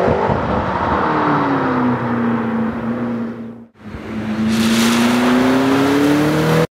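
McLaren MP4-12C Spider's twin-turbo V8 driving past at speed: the engine note falls and then holds steady. After a brief break a little over three and a half seconds in, the note climbs again as the car accelerates, with a loud hiss of tyres on the wet track.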